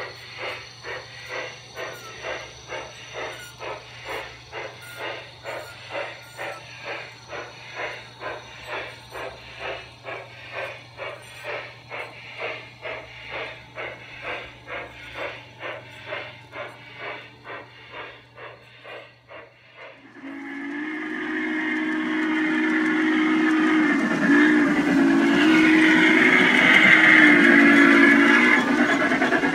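Model steam locomotives. First a steady rhythmic chuff, about two beats a second, over a low steady hum. About twenty seconds in, a louder locomotive sound takes over: a long, wavering steam whistle over running and hissing noise.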